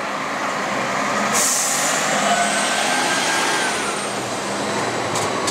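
Articulated city bus passing close by, with a sudden sharp hiss of compressed air about a second and a half in that fades over about a second, then its running noise with a faint whine rising and falling.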